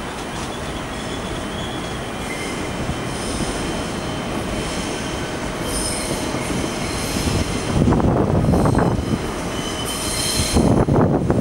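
A train of V2N double-deck coaches with a BB 15000 electric locomotive rolling along the rails, its wheels squealing in thin high tones over a steady rumble. The rumble grows louder about eight seconds in and again near the end.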